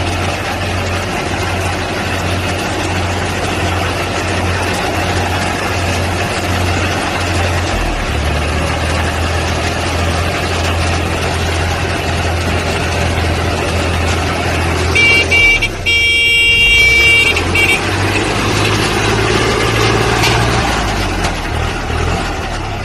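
Walk-behind tractor engine running a mini hay baler, a steady low drone with machine noise over it. About fifteen seconds in, a high horn-like tone sounds for roughly two and a half seconds, broken once just after it starts.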